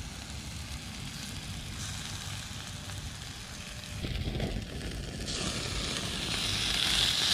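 Burgers sizzling over hot charcoal on a stainless steel grill, over a low rumble. The sizzle is faint at first, then about five seconds in it comes up as a brighter hiss that grows louder toward the end.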